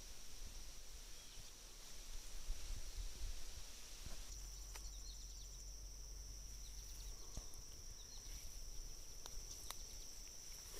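Steady high-pitched chorus of insects singing over a marsh meadow, with a low rumble of wind on the microphone and a few faint ticks.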